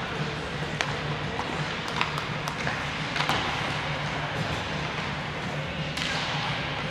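Ice hockey being played in a rink: several sharp clacks of sticks and puck, bunched between about one and three and a half seconds in, over a steady low hum and general rink noise.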